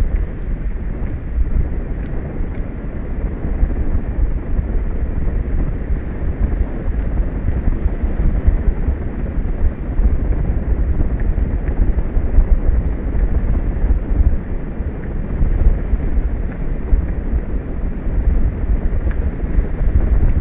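Wind buffeting an outdoor microphone: a loud, steady low rumble that rises and falls in gusts.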